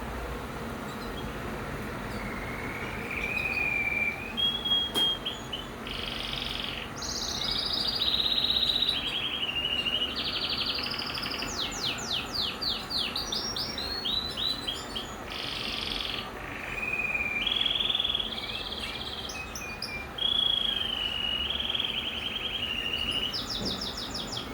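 Domestic canary singing a long song of rapid trills and rolls mixed with clear whistled notes, starting about two seconds in, with short breaks between phrases.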